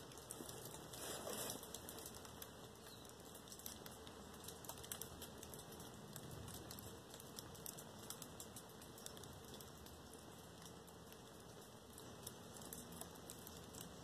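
Faint, irregular crinkling ticks from a crumpled foil blanket over a low hiss.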